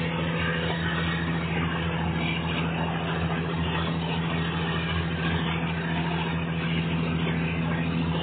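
Diesel railcar under way: a steady engine drone, even in pitch, over the rushing noise of the wheels and the wind as the train runs along.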